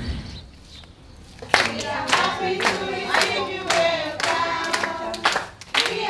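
A group of young children singing together and clapping in time, about two claps a second. The singing and clapping start about a second and a half in, after a brief lull.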